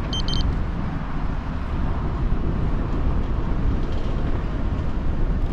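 Steady wind rush and road rumble on the camera microphone while riding an e-road bike, with a brief high beep right at the start.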